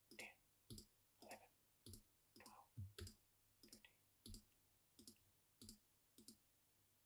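Computer mouse clicking quietly and evenly, a little under two clicks a second: repeated right-clicks and menu picks to duplicate a list entry over and over.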